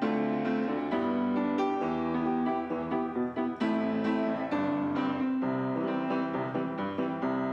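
Background piano music, with notes struck in a steady flowing pattern.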